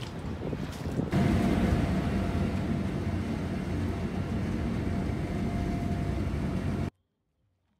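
Ferry engine running with wind and water noise, heard from on board, a faint steady hum over a low rumble. It starts after a brief stretch of wind at the quay and cuts off abruptly near the end.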